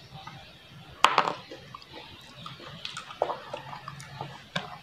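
Wet chewing and lip-smacking on soft, juicy soursop pulp: a series of sharp smacks, the loudest about a second in.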